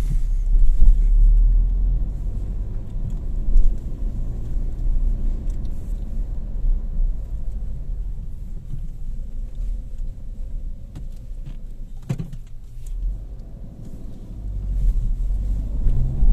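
Car heard from inside its cabin while driving slowly: a steady low rumble of engine and tyres, with one sharp knock about twelve seconds in.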